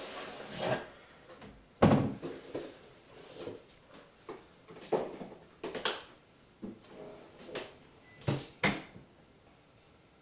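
A series of separate knocks and clatters from kitchen cupboard items and cabinet doors being handled, the loudest about two seconds in and a close pair near the end.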